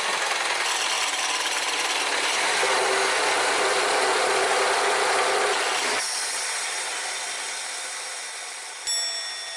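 MINI Cooper S (R56) engine running with a loud, abnormal mechanical noise that removing a foreign object has not cured; the owner takes the missing chain guide for its cause. The noise eases a little about six seconds in, and there is a sharp click near the end.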